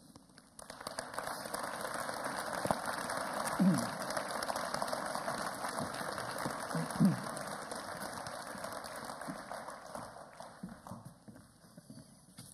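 Audience applauding, starting about half a second in and dying away near the end. A couple of brief voices sound among the clapping.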